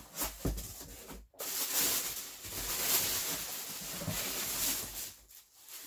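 Packaging and clothing rustling while the mixed-clothing box is unpacked and the first item is pulled out: a few soft bumps, then about three and a half seconds of loud, even rustling.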